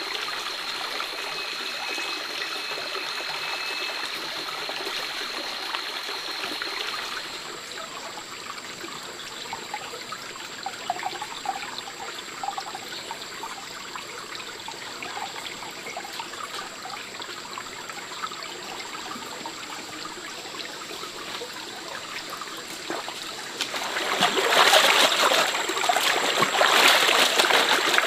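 A shallow forest stream running steadily over rocks. About 24 s in, louder splashing and sloshing as hands wash clothes in the stream water.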